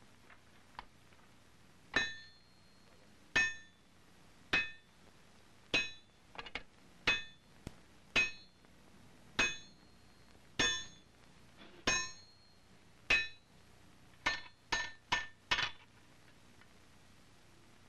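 Hand hammer striking red-hot wrought iron on an anvil, each blow ringing briefly: forging an iron bar into a flat skelp for a rifle barrel. About a dozen measured blows come a little over a second apart, then four quicker blows near the end.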